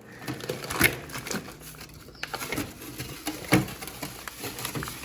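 Packs of frozen meat being handled: light plastic rustling with a few short knocks and clicks scattered through.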